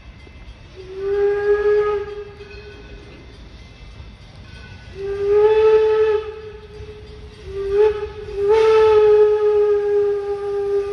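Greenfield Village's No. 7 steam locomotive blowing its steam whistle: two long blasts, a short one, then a long one that is still sounding at the end. The long-long-short-long pattern is the standard grade-crossing signal.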